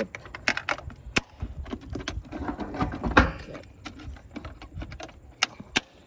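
Plastic housing of a VLTOND cordless robotic pool cleaner being snapped together: an irregular series of clicks and knocks as the top cover is pressed onto its side clips.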